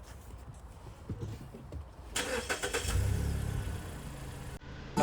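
A 2015 Mazda3's engine starting about two seconds in: a short crank with a low rumble that catches and eases down toward idle.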